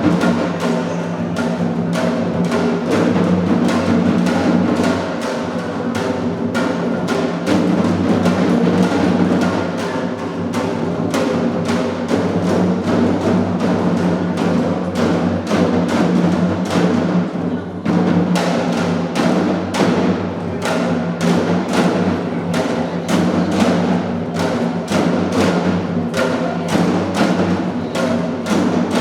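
Drum-led music: a steady run of evenly spaced drum strokes over a sustained, pitched accompaniment.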